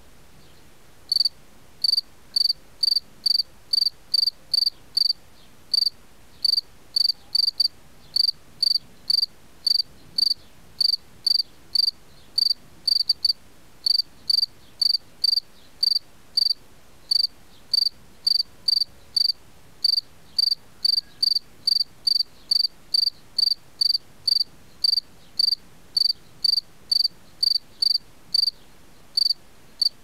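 Field cricket singing its calling song, a steady run of short, high chirps at about two a second, starting about a second in. Only males sing this song.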